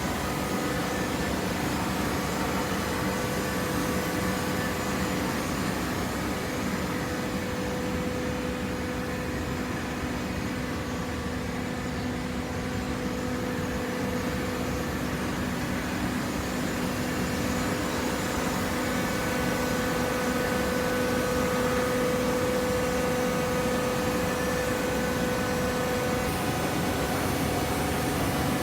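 Hydraulic cardboard baler running: a steady mechanical hum from its motor and pump with a held tone over it, getting a little louder in the last third.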